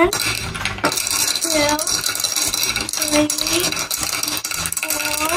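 Small gems and rock pieces from a dig kit clicking and rattling against each other and a hard surface as they are handled, with three short bits of a voice.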